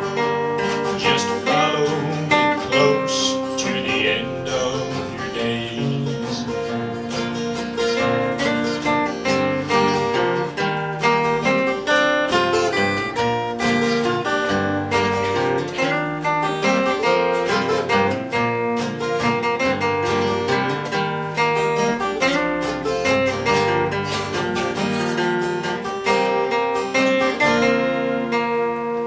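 Two acoustic guitars playing a closing instrumental passage of picked notes and strummed chords, with no singing over them.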